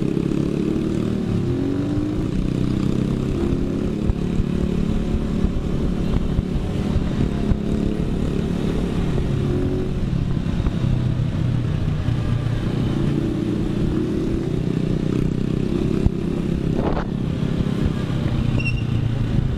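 Dirt bike engine running steadily while being ridden on the road, its pitch drifting slightly up and down with changes in speed.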